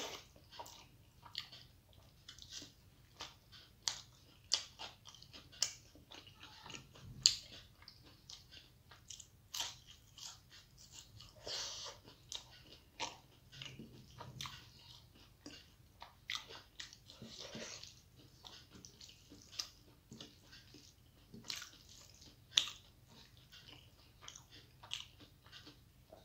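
Close-miked chewing of hand-eaten rice and dal: many short, irregular wet mouth clicks, with a few crisper crunches.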